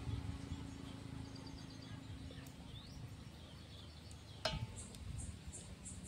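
Rural outdoor ambience: a steady low rumble with faint bird chirps. A sharp click sounds about halfway through, and near the end a bird or insect gives a quick run of high chirps, about three a second.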